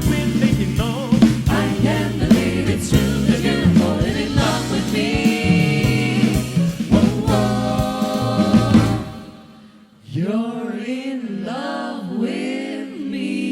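Jazz vocal group singing in harmony over a band with drums. About nine seconds in the band drops out briefly, and then the voices go on alone in sliding harmonies.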